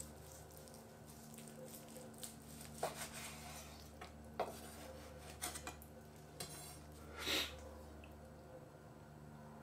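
A chef's knife slicing through cold chashu pork belly, its blade knocking against the wooden cutting board several times, with one longer, louder stroke a little after seven seconds in, over a steady low hum.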